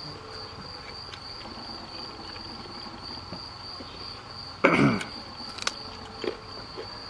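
Crickets chirring steadily in one high tone. About two-thirds of the way through comes a sudden loud crunch, then a few smaller crunches from chewing a raw vegetable stick close to the microphone.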